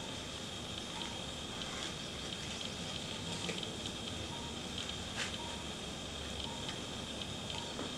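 Outdoor garden ambience: a steady high-pitched drone with a soft hiss underneath and a few faint clicks.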